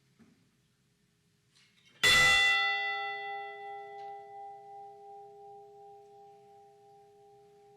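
A large bell struck once about two seconds in, its ring fading slowly with a wavering hum: a memorial toll for one lost crew member.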